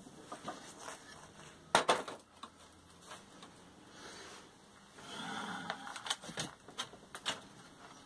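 Scattered knocks, clicks and scrapes of a freshly cut log and wood pieces being handled and moved on a sawdust-covered floor. There is one sharp knock about two seconds in, a short scrape around five seconds in, and several more knocks after it.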